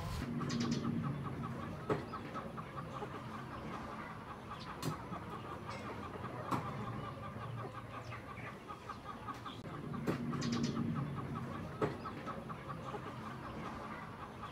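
Chickens clucking in two spells, near the start and again about ten seconds in, over a steady fast ticking trill, with a few light knocks.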